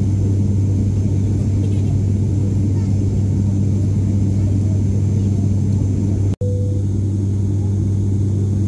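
Cabin drone of an ATR 72-600's turboprop engine and propeller heard from a seat beside it: a loud, steady low hum with fainter higher hums stacked above it. The sound cuts out for an instant about six and a half seconds in, then resumes unchanged.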